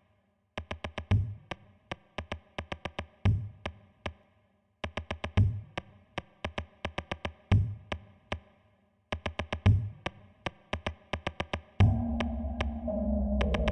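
Electronic drum-machine beat: deep kick drums about every two seconds with quick runs of hi-hat ticks between, broken by short pauses. Near the end a sustained synth bass and chord layer comes in under the drums.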